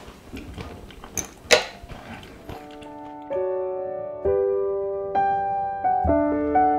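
A few small clicks and one sharp clink in the first two seconds, then gentle solo piano music begins about two and a half seconds in, single notes and chords struck every second or so and left ringing.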